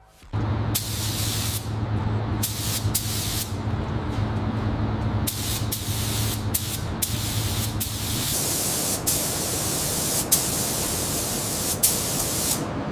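Paint spraying: a steady hiss with brighter spray bursts starting and stopping many times, as the trigger is pulled and released. A steady low hum runs underneath and stops about two thirds of the way through.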